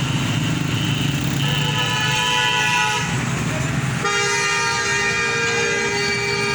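Vehicle horn sounding in two long blasts over road and engine rumble: a shorter one about a second and a half in and a longer, louder one starting about four seconds in.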